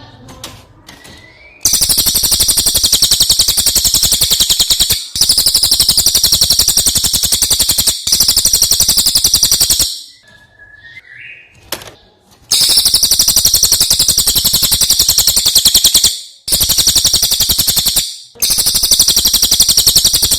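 Brown cililin songbird singing in long, very fast trills, repeated in six loud bouts with short breaks between them, as used in a masteran recording for training other songbirds.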